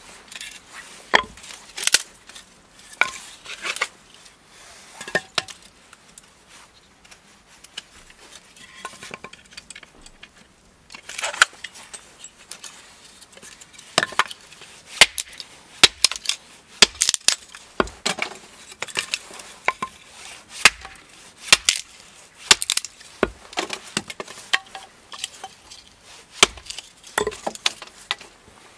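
Hatchet chopping and splitting small sticks of kindling on a wooden chopping block: a run of sharp, irregular knocks, sparser for several seconds before a quick series of strokes from about a third of the way in. Split sticks clatter as they are tossed aside.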